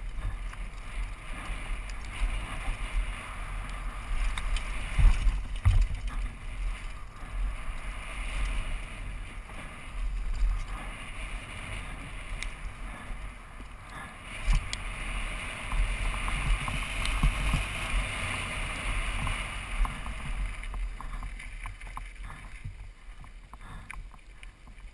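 Downhill mountain bike ridden fast over a rough dirt trail, heard from a helmet camera: wind buffets the microphone, the tyres rush over dirt and the bike rattles, with sharp knocks from bumps. It quietens over the last few seconds as the bike slows.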